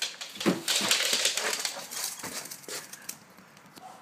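Two excited dogs rushing for the door, their claws clattering and scrabbling on a tiled floor, with one of them briefly vocalising about half a second in. The clatter dies down after about two and a half seconds.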